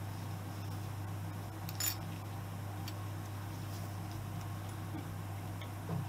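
Steady low hum with a few light clicks on top, including a sharp clink about two seconds in and a duller knock near the end.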